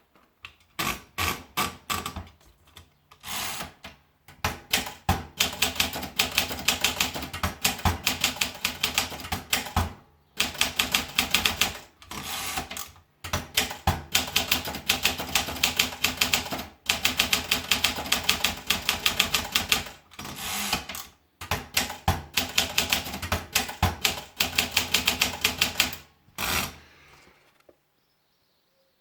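Olympia Traveller manual portable typewriter being typed on: runs of rapid keystrokes broken by short pauses. The typing stops near the end.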